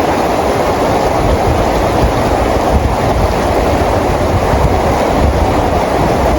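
Steady rain falling, an even, unbroken hiss with a low rumble underneath.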